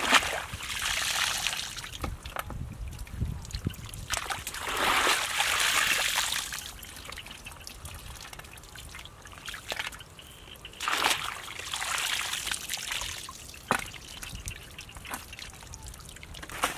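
Muddy water trickling and sloshing as a woven bamboo basket is dragged through shallow mud and lifted to drain, in three spells a few seconds apart.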